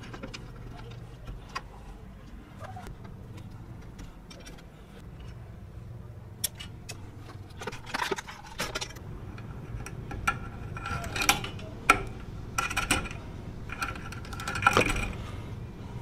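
Hands handling small hardware and tools: scattered clicks, scrapes and metallic clinks, sparse at first and busier from about eight seconds in, over a steady low hum.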